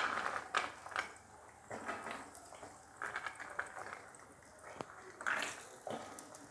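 Cashews and raisins frying in hot ghee in a pan: irregular small crackles and pops over a faint sizzle.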